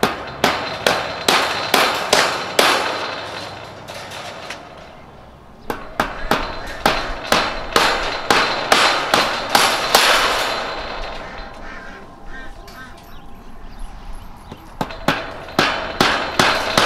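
Hammer driving 1¼-inch fence staples into a wooden frame to fasten a steel cattle panel: quick runs of blows, about three a second, each with a short ring, broken by two pauses.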